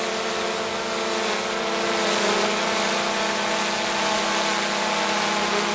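Multirotor drone's propellers buzzing steadily, a whine in several pitched tones over a hiss of air, growing slightly louder about two seconds in.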